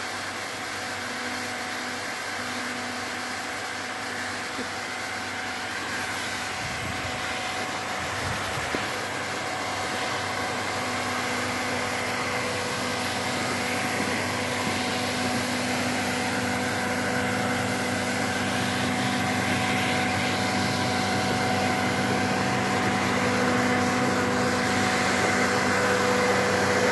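Snowmaking machine (snow cannon) running: a steady fan-like whir with a hum and a hiss of spray, growing gradually louder.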